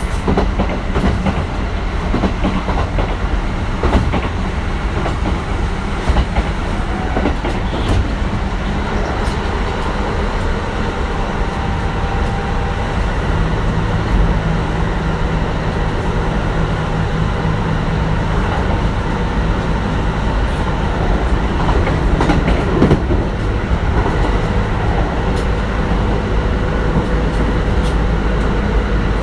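Kintetsu 1420 series electric train with Mitsubishi GTO-VVVF inverter control, heard from inside the car running steadily at speed: a continuous rumble of wheels on rail with scattered rail-joint clicks. Faint steady tones come and go in the middle.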